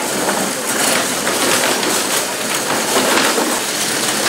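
Wheeled wire-mesh poultry transport cages, loaded with young hens, rattling and clattering continuously as they are rolled across a concrete floor.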